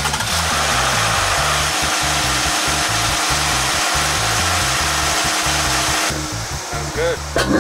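Jeep Cherokee Trailhawk engine running at a steady speed with its new K&N closed-loop snorkel intake: a loud, even rush of air with a steady hum. The rush cuts off suddenly about six seconds in.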